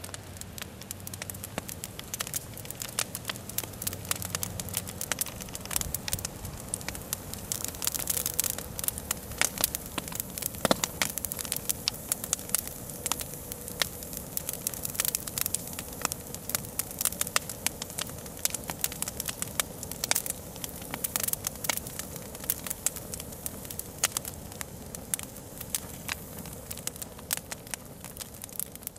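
A fire crackling, with many sharp irregular pops and one louder pop about a third of the way in.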